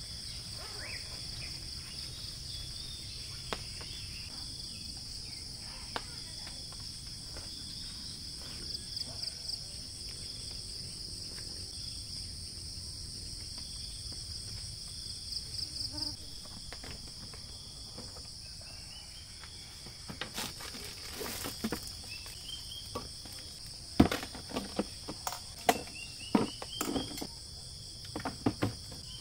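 Steady high-pitched insect chorus, pulsing into a trill now and then. In the last several seconds come sharp clicks and knocks of camping gear being rummaged in a plastic storage box, the loudest sounds.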